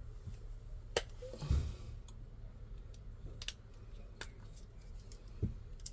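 Scattered sharp plastic clicks and a couple of dull knocks from a replacement car-key shell being handled and put together on a bench.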